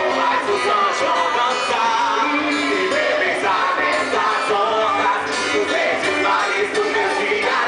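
Music with a singer, loud and steady throughout.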